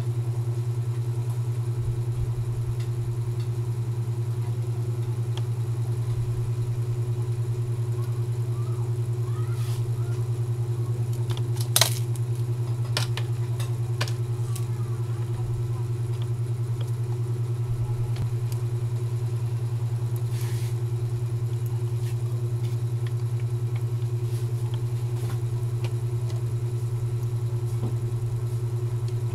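A steady low motor-like hum runs throughout, with a fainter steady tone above it. Over it come a sharp click about twelve seconds in and a few lighter clicks and knocks from handling a laptop and tools on the workbench.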